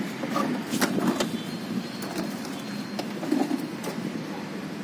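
Hands handling the parts around a motorcycle's opened seat compartment and its hidden cylindrical container: a few sharp clicks and knocks over a steady low background.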